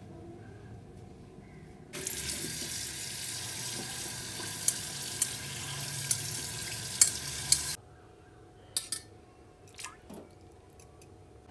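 Kitchen tap running into a stainless steel bowl of noodles at the sink for about six seconds, with a few sharp clinks, then shutting off abruptly. A few light clicks of metal tongs against the steel bowl follow.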